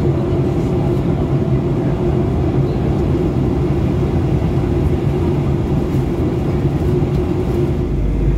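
Steady cabin drone of a Boeing 737-800 in descent: engine hum and airflow, with a few steady low tones. A deeper rumble joins near the end.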